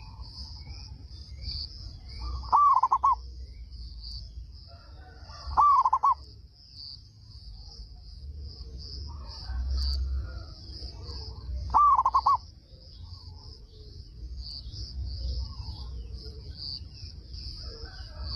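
Zebra dove (perkutut) cooing three times, each call a quick run of short notes about half a second long that opens with a rising sweep. A steady high buzz of insects goes on behind it.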